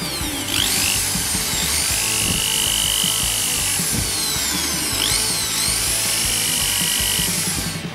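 Handheld electric drill running, its bit boring down into the end of an antique iron's wooden handle. It starts about half a second in and runs steadily until just before the end, its high whine sliding up and down in pitch as the speed changes.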